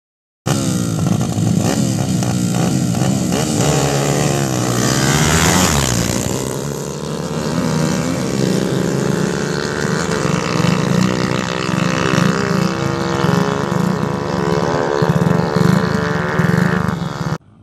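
Tuned small single-cylinder motorcycle engines, a Honda XRM125 among them, running flat out in a drag race, with more than one engine note heard at once. The pitch climbs and drops again and again with the gear changes. It starts abruptly and cuts off suddenly near the end.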